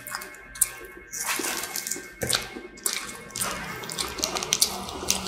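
Close-up eating sounds: chewing a mouthful of burger, with a string of short crisp crackles and clicks from the paper burger wrapper and fries being handled.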